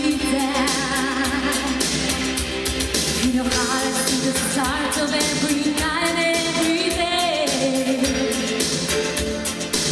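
Woman singing a pop song into a handheld microphone over a backing track with a steady beat, heard through a hall's PA. She holds several notes with vibrato around the middle.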